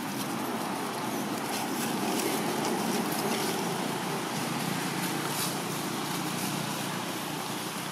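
Steady low rumbling noise that swells a little a couple of seconds in, then slowly eases off.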